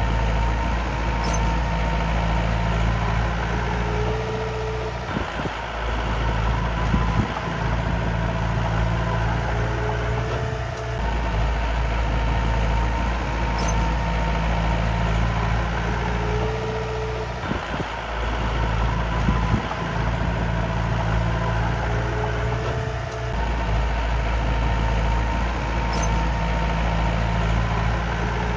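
Heavy truck diesel engine sound, running steadily with brief dips, the same stretch repeating exactly about every twelve seconds: a looped engine sound effect rather than a live engine.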